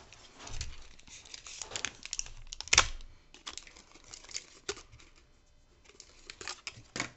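Clear plastic wrapper crinkling and crackling in irregular bursts as it is peeled off a maple lollipop, with a sharp click a little under three seconds in.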